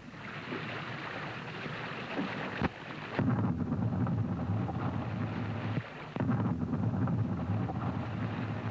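Wind and sea sound effects on an old 1940s film soundtrack. About three seconds in, a heavy low rumble takes over and becomes the loudest sound, breaking off briefly near the middle.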